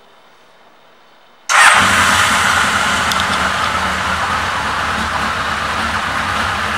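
A 1982 Honda CB900 Custom's air-cooled inline-four engine starting: it catches suddenly about a second and a half in, then settles into a steady idle.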